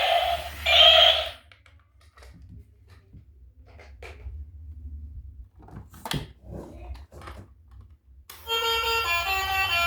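A loud, reedy electronic tone cuts off about a second in. Then come scattered light clicks and knocks of handling. Near the end a bright electronic tune of stepped notes starts.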